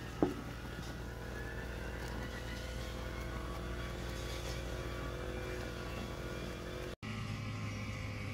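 Steady motor hum with a low drone, with one sharp knock just after the start as a wooden spoon stirs a pot of simmering soup.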